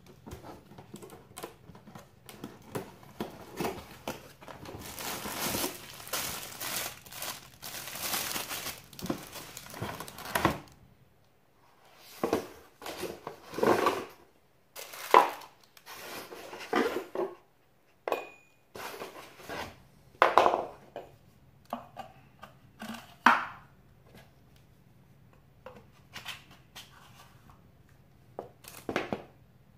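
A cardboard product box being opened and unpacked by hand: a long stretch of crinkling and tearing of cardboard and packaging, then scattered knocks and scrapes as the box and an ab roller wheel are handled on a wooden floor.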